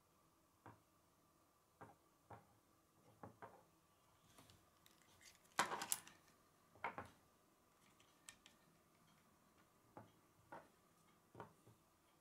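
Plastic K'nex pieces clicking and clattering as rods and connectors are handled and snapped together: scattered single clicks, with a louder burst of rattling clicks about halfway through.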